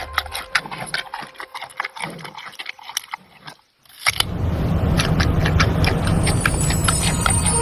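Giant panda crunching a carrot: a run of sharp, irregular crunches that stops for a moment about three and a half seconds in, then carries on over a low steady rumble.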